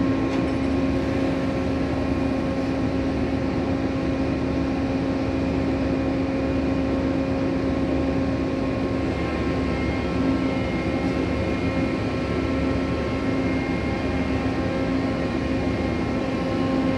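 Steady machinery hum of the cargo-handling gear working a clamshell grab during grain discharge from a bulk carrier. It holds one even pitch with overtones and no sharp knocks.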